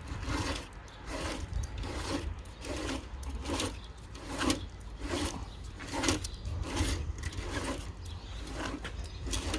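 MIG welding wire being wound back by hand onto its spool, a regular rubbing and scraping at about two strokes a second.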